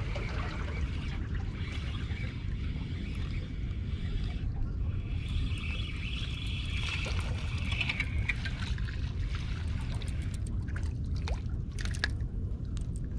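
Spinning reel being cranked to bring in a hooked fish, over a steady low wind rumble on the microphone. Near the end come a few sharp splashes as the fish thrashes at the surface close in.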